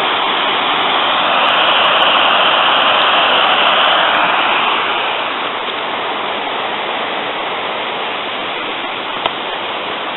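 Sgwd Clun-gwyn waterfall on the Afon Mellte rushing: a steady, loud noise of falling water, a little louder in the first few seconds and easing slightly about five seconds in. One brief click near the end.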